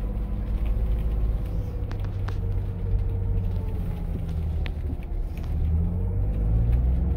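Ford Bronco driving on a dirt trail, heard from inside the cabin: a steady low rumble of engine and tyres, with a faint steady tone and a few light clicks.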